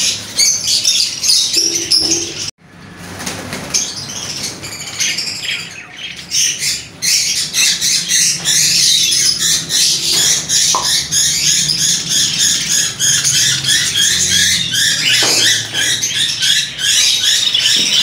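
Many small cage birds, budgerigars among them, chirping and twittering in a dense, continuous chorus. The sound breaks off sharply for a moment about two and a half seconds in.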